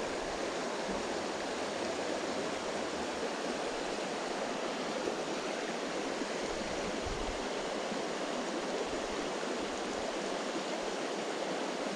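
Shallow, rocky creek running over stones: a steady, even rush of water.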